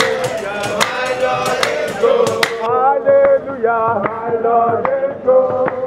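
Gospel chant sung by a male voice, with a rhythmic tambourine beat. About two and a half seconds in, the tambourine drops away and the singing goes on sounding duller.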